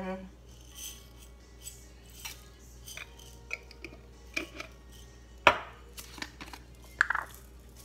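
Light clinks and taps of a glass spice jar as whole black peppercorns are shaken into a glass mixing bowl. A sharp knock about five and a half seconds in as the jar is set down on the stone counter, and another clink about a second and a half later.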